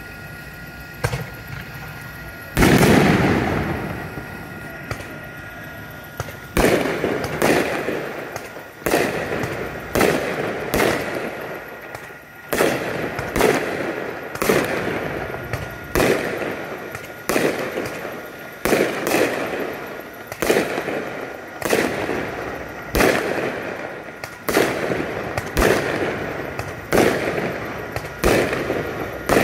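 Fireworks exploding: one big boom about three seconds in, then from about six seconds a steady run of sharp bangs, roughly one a second, each trailing off in echo.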